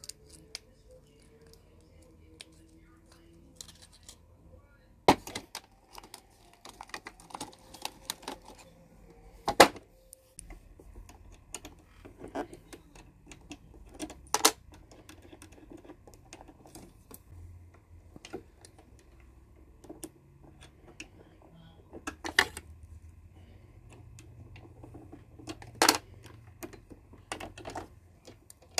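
Irregular small clicks and taps of hands handling a plastic needle case and the needle-clamp area of a sewing machine during a needle change, with a few sharper clicks standing out.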